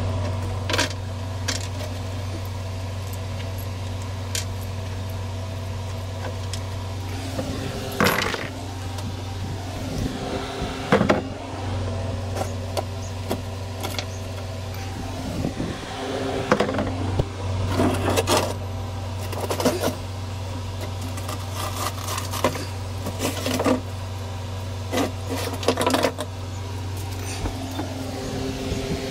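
Loose steel bolts, washers and a rusted drip pan clinking, knocking and scraping as they are handled, in scattered irregular knocks over a steady low hum.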